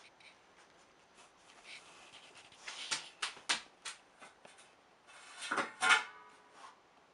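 Baby squirrel gnawing an acorn: irregular sharp crunches and clicks of teeth on nut, loudest in a quick cluster about three seconds in and again near six seconds.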